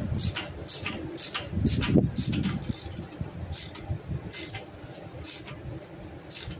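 Socket ratchet clicking as it is worked back and forth to tighten the bolt holding a boat trailer's bow roller. Sharp clicks come about twice a second at first, then more sparsely.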